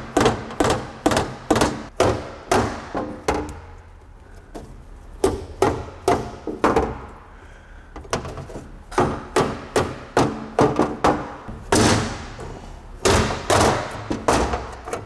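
Repeated sharp knocks on a Saginaw power steering pump and its metal reservoir shell, in bursts of several strikes about three a second with short pauses, as the stuck pump is worked loose from the shell.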